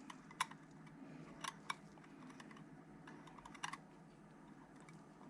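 Scattered light clicks and taps of small hub parts and tools being handled, four sharper ones among fainter ticks, irregularly spaced.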